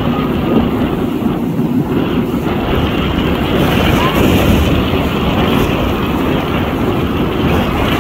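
Steady low rumble of wind on the microphone mixed with the distant roar of a formation of jet aircraft flying past.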